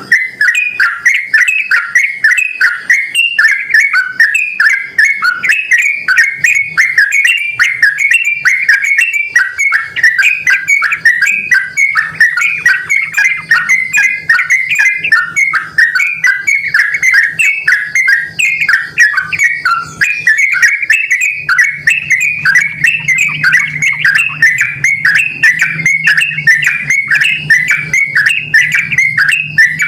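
Yellow-vented bulbul (trucukan) singing in a lively, unbroken stream of rapid bubbly chattering notes, the kind of call used to lure other yellow-vented bulbuls into answering.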